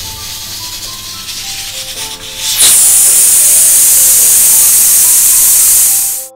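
Aluminium pressure cooker releasing its pressure: a steady hiss, then about two and a half seconds in the weight is lifted off the vent and steam rushes out in a loud, even jet that cuts off suddenly at the end. This is the manual pressure release after about ten minutes of pressure cooking.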